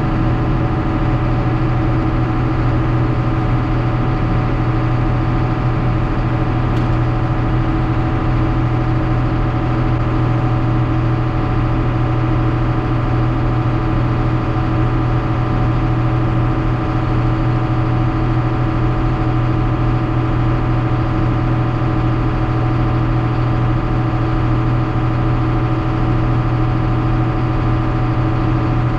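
Farm vehicle engine idling steadily while it warms up before the load of soybeans is unloaded.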